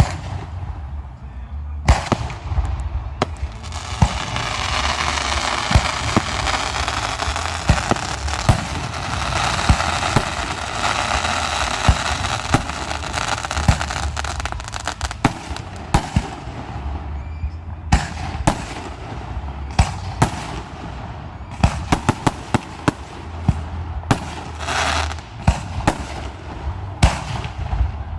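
Aerial fireworks display: shell bursts going off one after another. A dense rushing hiss fills the first half, and the reports come thicker and faster in the second half.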